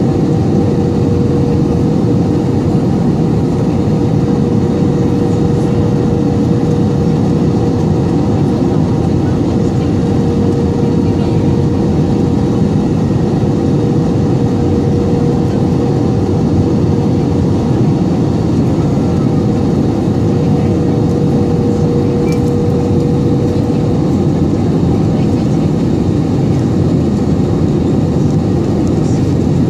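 Steady jet airliner cabin noise from a window seat beside the wing of an Airbus A321-200 on approach with its flaps extended: a dense, even rumble of airflow and engines. A faint steady hum rides on it and stops about three quarters of the way through.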